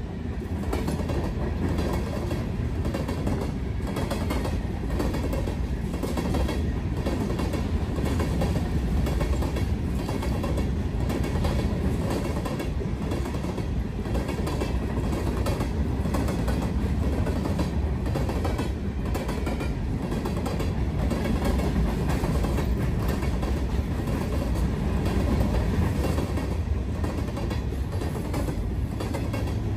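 BNSF freight train rolling past, a steady rumble of freight cars with the wheels clicking over rail joints.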